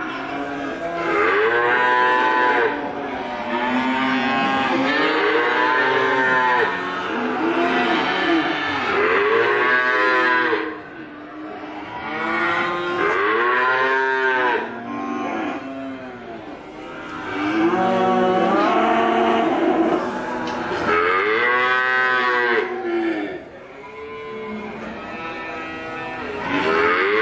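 Young Simmental calf mooing again and again: a long run of loud, high calls, each rising and falling in pitch, with short breaks between them.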